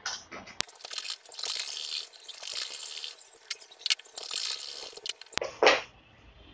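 Fabric and a zip being handled on a sewing-machine bed: rustling with sharp clicks, followed near the end by a short thump.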